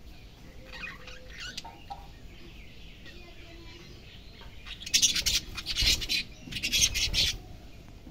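Pet budgerigars chirping: soft short chirps at first, then a loud run of harsh chattering calls from about five to seven seconds in.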